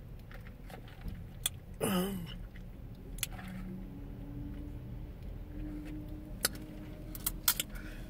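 A person sips a drink through a straw, with a short murmured 'mm' with falling pitch about two seconds in. A few sharp clicks near the end come from a car seatbelt being pulled across and buckled. A low steady rumble runs underneath.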